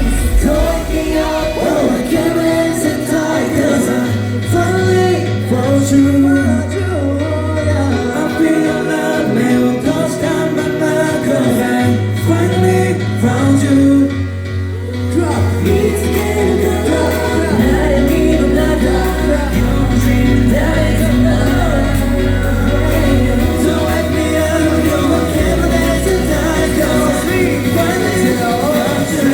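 Pop song performed live by a male vocal group: sung melody over a deep bass line that moves between long held notes.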